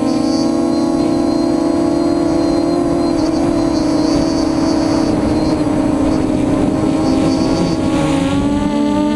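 A custom F330 quadcopter's brushless motors and propellers whining steadily, heard through its onboard camera, over a rushing hiss. Near the end the pitch wavers up and down.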